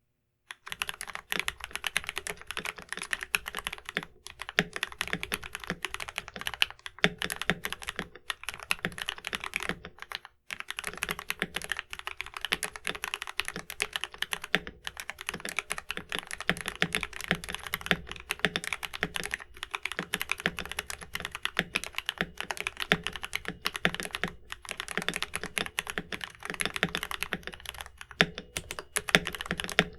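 Fast, continuous typing on a Next Time 75 mechanical keyboard with Gateron Milky Yellow switches, a dense stream of key strokes with a deep sound, pausing briefly twice.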